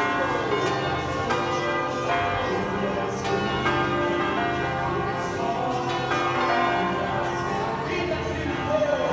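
Several church bells ringing together, struck at uneven intervals, their tones overlapping and ringing on between strikes.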